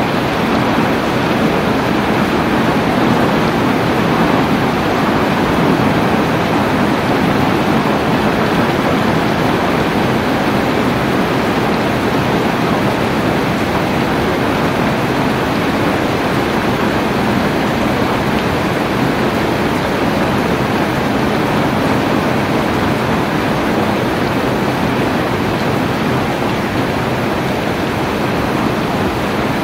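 Steady rain falling, a dense, even hiss with no single drops, thunder or other events standing out.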